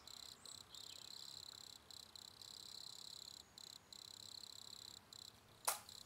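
Faint cricket chorus: a steady high chirring with brief breaks. Near the end, a single short sharp pop.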